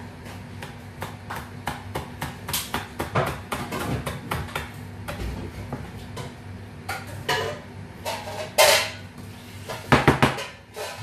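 Kitchen knife chopping bird's eye chilies on a cutting board: quick, irregular knocks of the blade against the board. About eight seconds in there is a louder, longer scrape.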